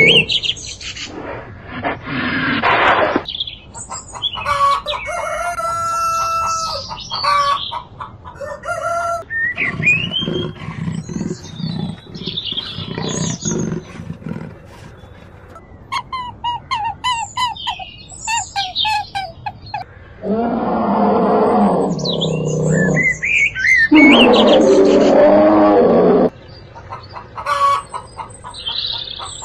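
A string of different animal calls cut one after another, among them chickens clucking and a rooster crowing.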